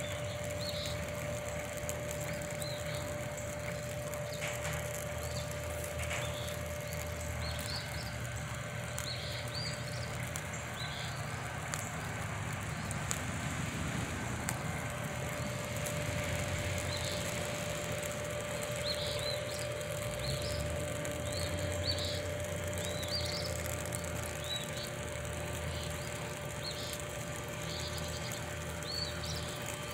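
Light rain falling, with small birds chirping again and again and a low steady rumble underneath.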